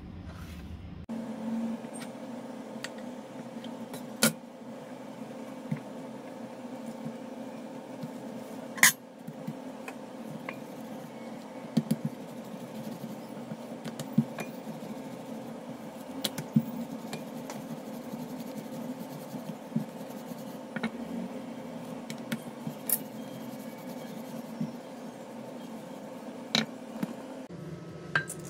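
Kitchen utensils knocking and clicking now and then on a granite countertop, a knife and a rolling pin used on dough, over a steady low hum.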